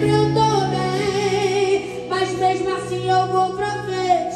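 A woman singing a Portuguese gospel song into a microphone over the church PA, with a wavering vibrato on a held note about a second in, over held chords from the accompanying band.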